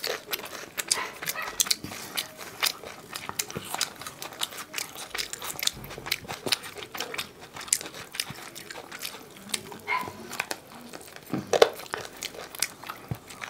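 Close-miked eating sounds of two people eating chicken curry and rice by hand: wet chewing and lip smacks, heard as many short irregular clicks.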